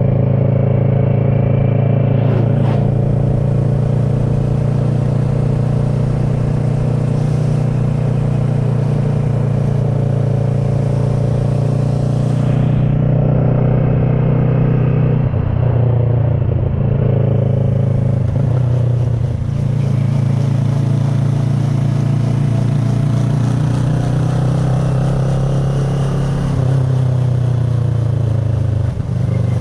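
2010 Kawasaki ER-6n's parallel-twin engine running under way through an SC Project carbon exhaust, its note shifting with changes in engine speed about halfway through and near the end.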